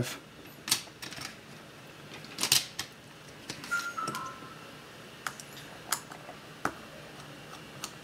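Sparse, light clicks and taps of small hand tools and plastic: a precision screwdriver backing out a hard-drive screw and a plastic screwdriver case being handled.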